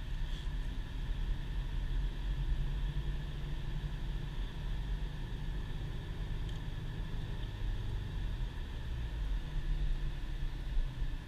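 Cabin noise of a 2010 Subaru Impreza while driving: a steady low engine and tyre rumble with a faint even hiss above it.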